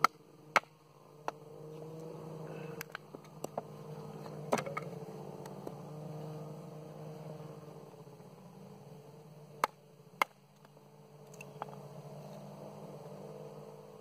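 Wooden baton knocking on the back of a small hatchet multi-tool's head, driving the blade down into a block of firewood to split it: sharp, separate knocks at irregular intervals, several in the first few seconds, one about four and a half seconds in and two close together about ten seconds in. A steady low drone runs underneath.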